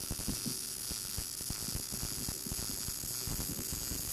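Electric arc welding on steel: the arc crackles and hisses steadily while it lays a short skip-weld bead of a few inches, run this way to keep the steel from warping.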